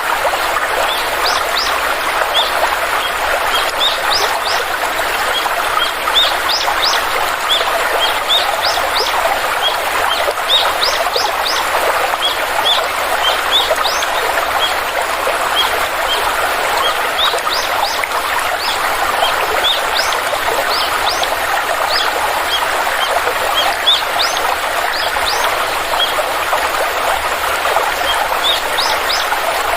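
Stream water flowing steadily, with small birds chirping over it: many short, quick rising chirps throughout.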